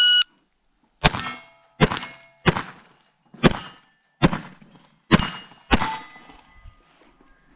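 An electronic shot timer beeps once, then a rimfire pistol fires seven quick shots over about five seconds at steel plates, which ring with a metallic clang on the hits. The last shot comes at about 5.8 seconds, timing the string.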